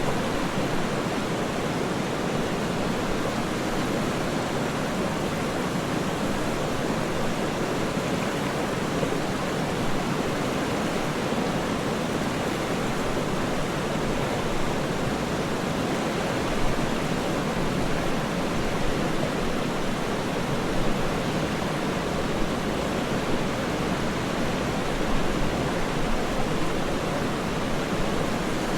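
Waterfall rushing steadily: a constant, even roar of falling water with no separate splashes.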